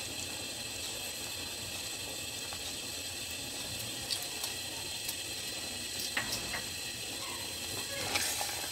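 Sugar syrup with plums simmering in a steel saucepan: a steady bubbling hiss, with a few faint clicks from the spatula stirring in the pan.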